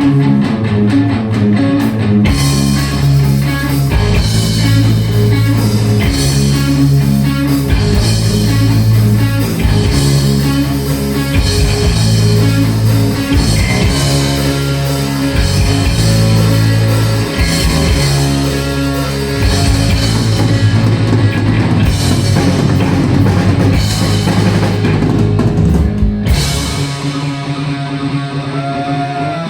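Heavy metal band playing live: an electric guitar riff on its own, then drums and bass come in about two seconds in with a driving beat. Near the end the drums drop out, leaving the guitars and bass ringing on.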